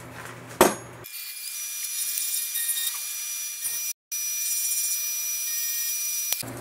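Milling machine face-milling the end face of a cast aluminium finned cylinder block: a steady high whine over a cutting hiss, starting about a second in and dropping out for a moment near four seconds. Before it there is a single knock.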